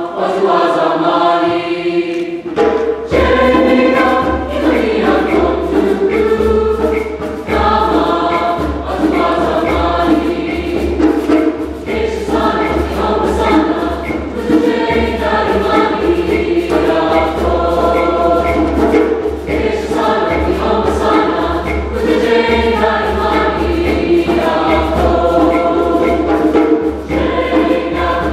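Mixed choir singing a Swahili song in full harmony, with a hand drum coming in about two and a half seconds in and beating a steady rhythm under the voices.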